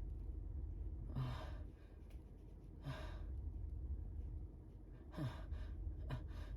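A person's quick, gasping intakes of breath, four of them spaced a second or two apart: the catching breaths of a sneeze building up.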